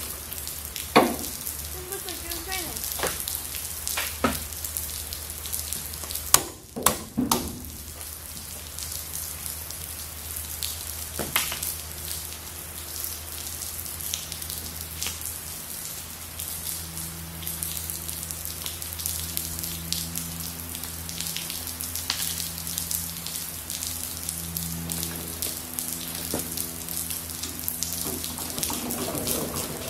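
Heavy rain falling, an even hissing patter, with a few sharp clinks of tools and metal in the first half and a low steady hum underneath.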